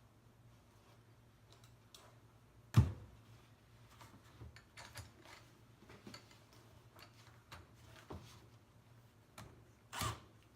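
Scattered clicks and knocks of metal tools being handled, with one loud sharp knock about three seconds in and another near the end, over a faint steady low hum. No drill runs yet.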